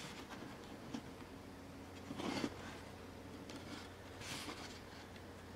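Faint handling sounds of a printed circuit board being pressed and shifted on a tabletop by hand: a light tap about a second in and short soft rubs about two and four seconds in, over a steady low hum.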